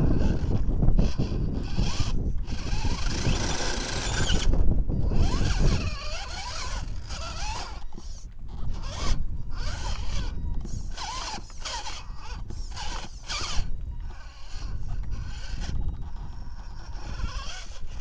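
Radio-controlled rock crawler's electric motor and geared drivetrain whining in short stop-start bursts, the pitch rising and falling with the throttle as it climbs over rocks. A low rumble fills the first six seconds or so.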